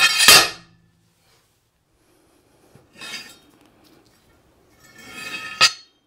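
A 3.4 kg sledgehammer head dropped 1.1 m down two metal guide rods lands with one loud bang and a brief ring on a solid ABS-like resin cube, which survives intact. After that comes metal scraping and sliding as the hammer head is handled and raised back up the rods, ending in a sharp clank near the end.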